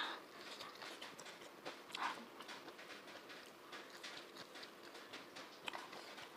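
Close-miked chewing and mouth sounds of a person eating a rice meal with her hands: many small wet smacks and clicks, with a louder smack at the start and another about two seconds in.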